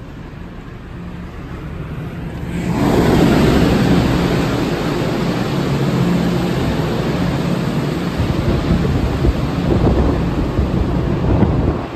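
Low, steady drone of a ferry's machinery; about two and a half seconds in, a door opens onto the outer deck and loud wind and rain noise takes over, with the wind buffeting the microphone over the continuing ship drone.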